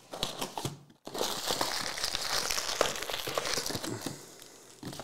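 Foil-wrapped trading card packs and the cardboard of a hobby box being handled. A short rustle comes first, then steady crinkling with small clicks from about a second in.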